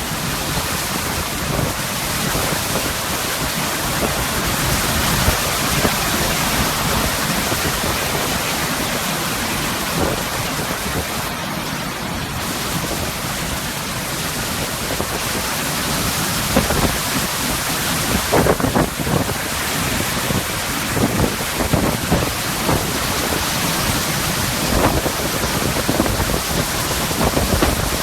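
Hurricane storm noise: wind and driving rain as a steady rush, with brief knocks and gusts now and then in the second half.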